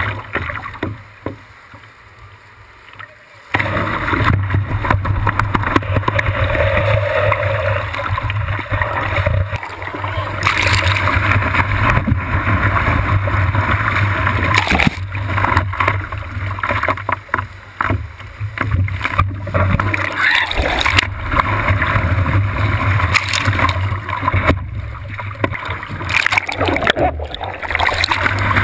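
Water rushing and splashing against a surfboard-mounted camera as the board paddles and rides through breaking whitewash, in irregular surges. The sound drops away briefly about a second in and returns sharply a couple of seconds later.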